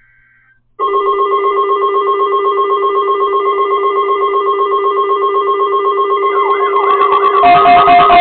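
NOAA Weather Radio warning alarm tone (the 1050 Hz alert tone) sounding from a weather radio as a weekly test of the alarm, a loud steady tone starting about a second in. Near the end wavering glides and then guitar music come in over it.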